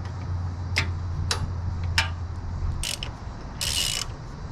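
Ratchet wrench tightening a crash bar bolt: a few separate clicks, then short bursts of rapid ratcheting in the second half. A steady low hum runs underneath and stops a little past halfway.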